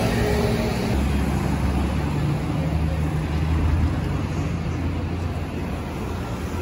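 Street traffic: cars passing close by, their engines a steady low rumble that is strongest in the first few seconds and eases toward the end.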